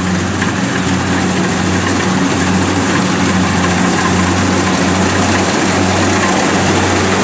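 Kubota DC70 rice combine harvester running under load while cutting standing rice. Its diesel engine makes a steady low hum, and the cutting and threshing machinery adds a loud, even rush.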